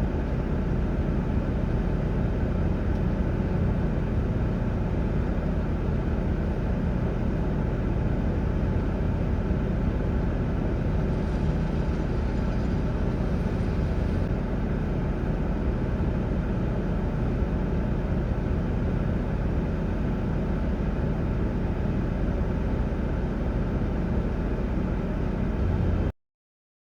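Steady vehicle rumble of engine and road noise, unchanging throughout, cutting off abruptly near the end.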